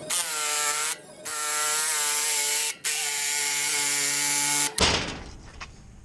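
Electric jigsaw cutting a strip of wood: the motor runs with a high whine in three runs of about one to two seconds each, with short breaks between, then stops about three-quarters of the way through.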